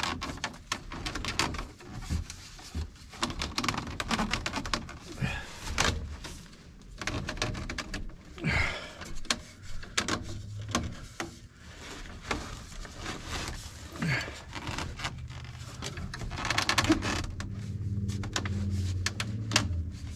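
Irregular knocks, clicks and scraping of plastic drain-vent pipe pieces and elbow fittings being handled and pushed together in a dry fit. A low steady hum comes in over the last few seconds.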